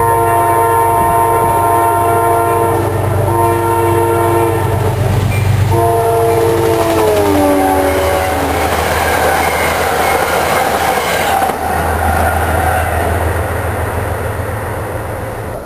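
Amtrak passenger train passing at speed, its locomotive horn sounding a multi-note chord in three long blasts, the last dropping in pitch as the locomotive goes by. Then the rush and clatter of the passenger cars' wheels on the rails, easing off near the end.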